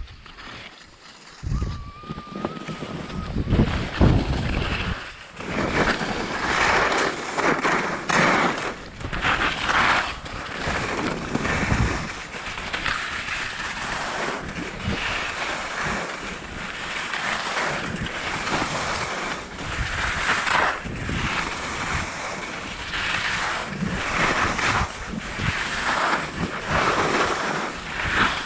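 Skis scraping and carving over packed, chopped-up snow, the hiss swelling and fading with each turn about every couple of seconds, with heavy wind noise buffeting the microphone.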